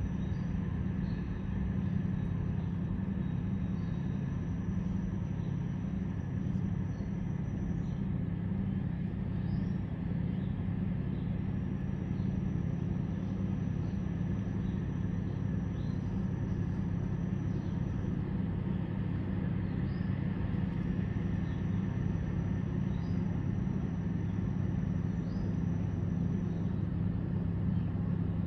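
Diesel engines of a river towboat pushing a string of barges: a steady low rumble.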